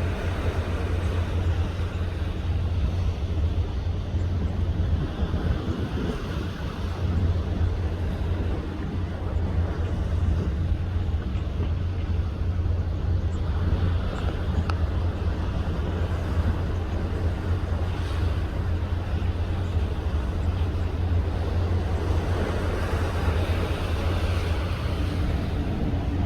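Strong wind buffeting the microphone: a steady low rumble with a rushing hiss over it.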